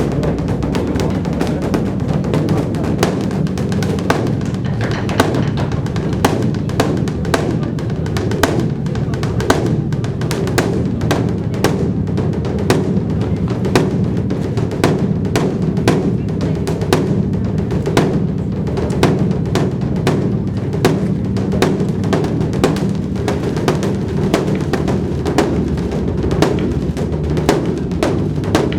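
Continuous drumming: sharp strikes about twice a second over a deep, unbroken rumble.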